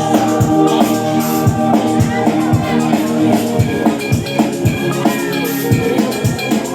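Music with a steady, quick drum beat under held melodic notes.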